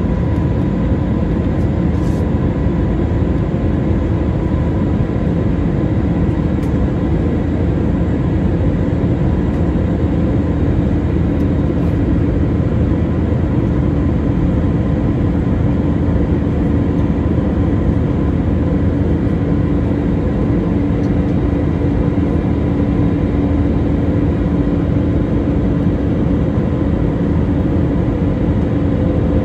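Steady cabin noise inside an Airbus A320 in flight: a constant rush of engine and airflow noise, heaviest in the low range, with a faint steady hum running through it.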